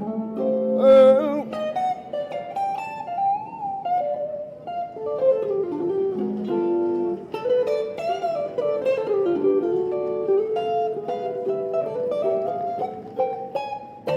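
Electric guitar playing a blues lead of single plucked notes, many of them bent and wavering in pitch. A man's raspy voice sings the word "baby" near the start.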